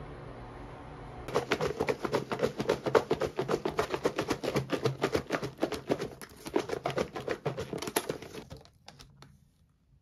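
Clear plastic salad container crackling and clicking rapidly as it is handled and its lid pried open, stopping about a second before the end. Before it, about a second of steady background hiss.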